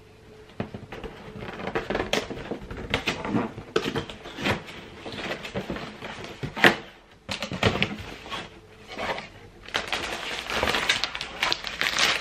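Packaging being handled as a cardboard box is opened and its contents unwrapped: irregular rustling and crinkling of wrapping, with one sharp knock about six and a half seconds in.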